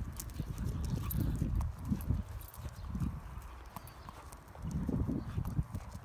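Irregular footsteps and scuffs on tarmac with scattered light clicks. The steps come in two bunches, one through the first half and one again near the end.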